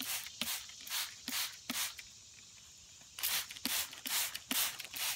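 Hand spray bottle pumped rapidly, each squeeze giving a short hiss of spray with a faint click at its start: a quick run of about six sprays, a pause of about a second, then another run of about five.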